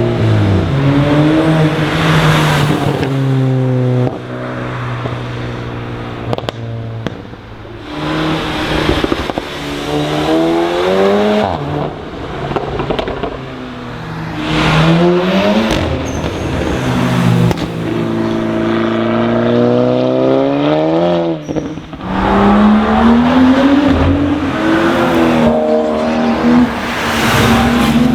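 Several cars accelerating hard past one after another, each engine note climbing in pitch as it revs up and then dropping away as it goes by, with a few short sharp cracks in between.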